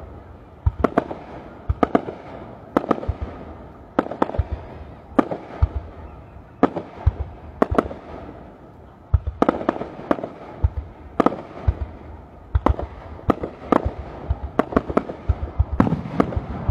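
Aerial firework shells exploding in a steady barrage: sharp bangs about once or twice a second, coming in quicker volleys around the middle and near the end.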